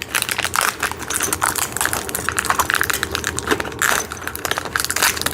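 Small metal hardware, bolts and washers, clinking and rattling in quick irregular clicks as it is picked out by hand.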